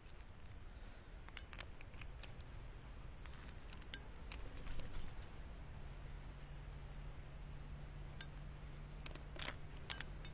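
Climbing gear clinking: carabiners and a spring-loaded camming device click and rattle as the cam is set in a rock crack and a sling is clipped to it. The sound is a scatter of light metallic ticks, with a few sharper clinks near the end.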